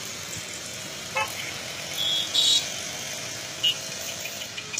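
Steady city road traffic noise, with short high-pitched horn toots about two seconds in.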